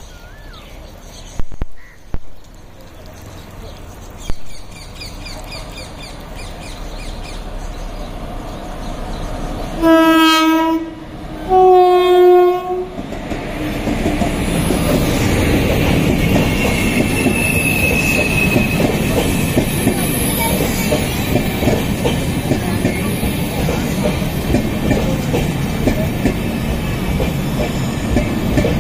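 Passenger train approaching and passing close by. A low rumble builds, then the locomotive's horn sounds two blasts about ten and twelve seconds in, the second slightly higher. After that the locomotive and coaches roll past with a loud, steady rush of wheel-on-rail noise.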